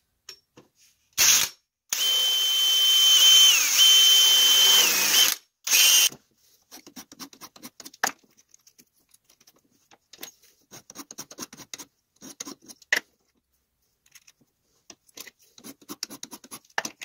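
Electric drill boring a hole through a magnifying lamp's base: a short burst, then a steady run of a few seconds whose high whine sags twice as the bit bites, and a last brief burst. Then a hand file rasps in short, irregular strokes on a small aluminium plate held in a bench vise.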